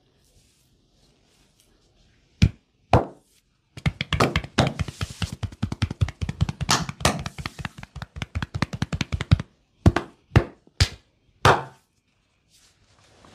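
Percussive massage with bare hands: slaps and chops on a man's bare back and body. Two single slaps, then a fast run of strikes lasting about five seconds, then four more single slaps.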